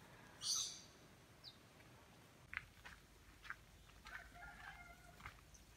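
Faint chickens clucking and calling, with one longer pitched call about four seconds in. A brief soft hiss comes about half a second in.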